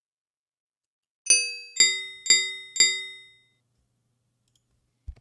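Four sharp metallic dings about half a second apart, each ringing out and fading: an Audacity test track of struck hits playing back for a mic latency check, while it is re-recorded through the headset into the mic. A short click follows near the end.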